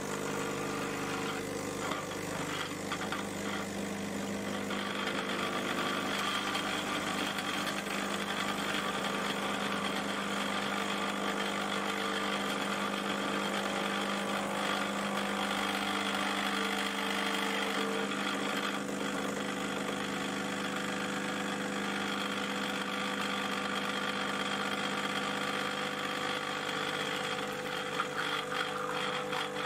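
Amazon Basics espresso machine brewing a shot: its pump runs with a steady buzzing hum as water is pushed through the packed coffee.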